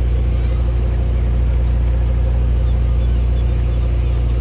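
2021 Cobra 850 motorboat's engine running steadily with a constant low drone while the boat is under way.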